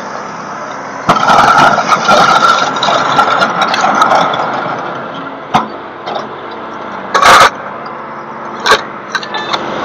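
A heavy vehicle's engine running. It revs up loudly about a second in, holds for a couple of seconds and then settles back to a steady run. Later come a couple of sharp knocks and a short loud burst of noise.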